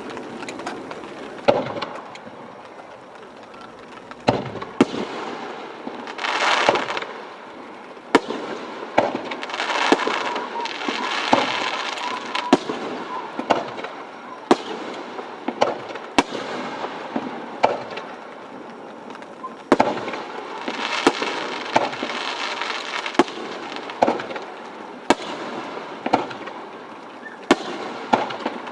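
Aerial fireworks shells bursting overhead: many sharp bangs at irregular intervals, several a few seconds apart and some in quick clusters, with a few longer stretches of rushing noise between them.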